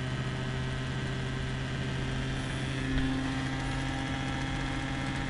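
Homemade pulse motor with pulsed drive coils and a large neodymium-magnet flywheel rotor, running on its third, overdrive speed and picking up speed. It makes a steady hum of several tones, and a slightly higher tone comes in about three seconds in.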